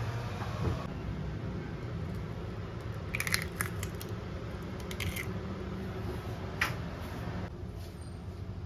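An egg being cracked and split open over a stainless steel bowl: a cluster of sharp clicks and taps of eggshell about three seconds in, more about five seconds in, and a single tap a little later, over a steady low background hum.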